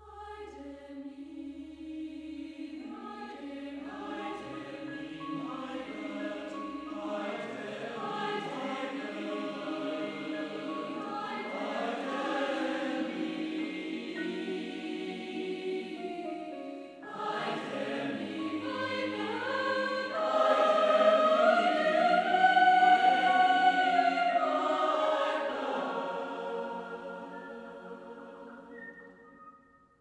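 Mixed choir of men's and women's voices singing together in sustained chords. The voices enter at the start, break off briefly about halfway, swell to their loudest a few seconds later, then fade away near the end.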